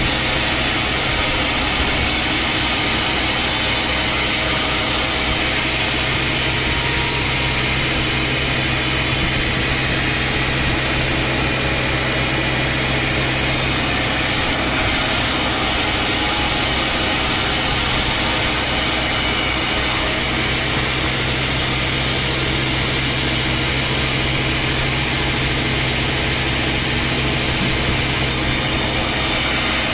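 Engine-driven sawmill machinery running steadily: a constant low engine hum under a dense high hiss, unchanging throughout.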